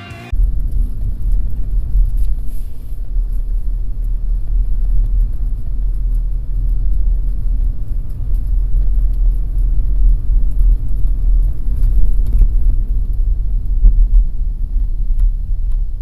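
Deep rumbling noise that rises and falls in level. It starts abruptly a moment in and continues throughout.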